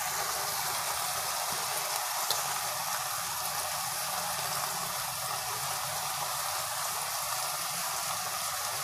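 Chopped capsicum, onions and green chillies sizzling in oil in a steel pot on a gas stove: a steady hiss.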